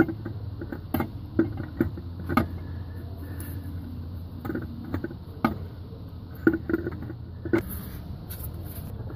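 Automatic transmission torque converter being turned by hand and slid onto the transmission input shaft: irregular metallic clicks and clunks as it shifts on the shaft while being lined up, over a steady low hum.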